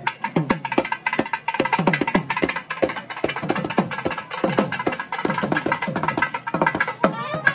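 Fast, dense drumming, about four or five strokes a second with drum notes that drop in pitch, under a held melody line: music played for a kavadi dance.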